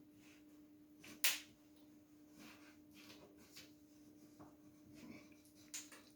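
Quiet room with a faint steady hum, a sharp click about a second in, another near the end, and a few faint knocks between: small handling clicks.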